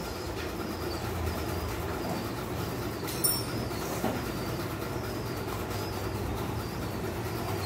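Steady low background rumble with faint bird chirps, and a single metallic tool clink about three seconds in.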